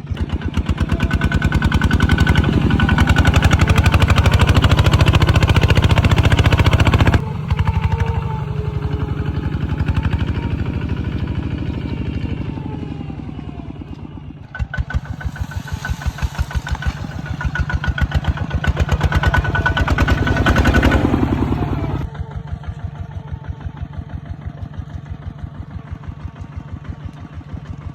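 Kubota ZT140 single-cylinder diesel engine running with an even chugging beat. It is louder for the first seven seconds and again from about 15 to 22 seconds, and drops abruptly in level in between and near the end.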